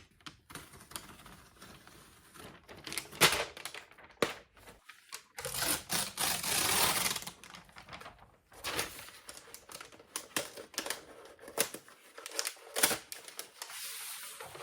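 Quiet, irregular clicks and taps from handling a new MacBook Pro laptop, with a longer rustling scrape about six seconds in.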